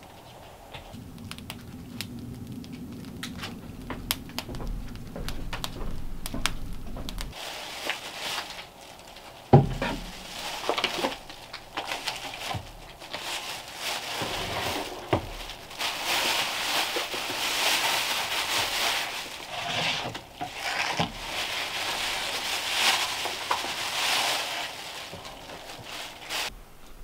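Plastic grocery bag rustling and crinkling while food packages and a plastic container are handled on a wooden counter, with scattered knocks and one sharp knock about a third of the way in. Before that, a steady low hum for several seconds.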